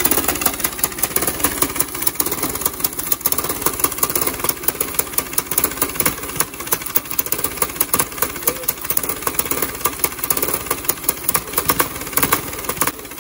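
Small single-cylinder go-kart engine running with its exhaust blown through a real brass trumpet: a loud, rapid, uneven pulsing, loud enough to overload the microphone. The trumpet's narrow mouthpiece bore restricts the exhaust, so the engine struggles to breathe.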